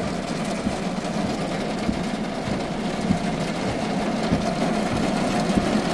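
Torrential rain from a supercell pouring down in a steady, dense patter, with a steady low hum underneath.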